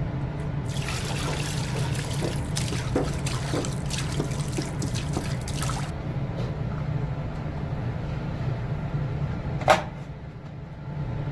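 Clear coat trickling from a hose into a spray gun's paint cup, filling it with a running, dripping liquid sound over a steady low hum. A single sharp click sounds near the end as the cup is handled and closed.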